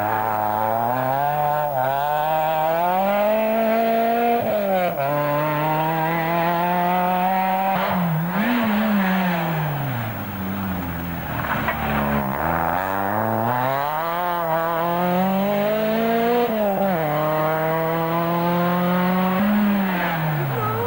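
Rally car engines revving hard as the cars come through one after another, the pitch climbing through each gear and dropping sharply at each change or lift, several times over.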